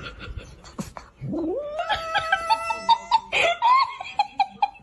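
A cat yowling. A long drawn-out call rises steeply in pitch and is held, then a second wavering, pulsing call follows.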